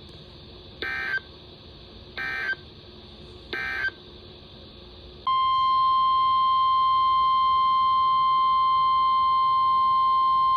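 Emergency Alert System signalling: three short, buzzy bursts of SAME digital data tones about a second apart, typical of the end-of-message code. About five seconds in, a loud, steady, single-pitched NOAA Weather Radio 1050 Hz alert tone starts and holds, announcing the next warning.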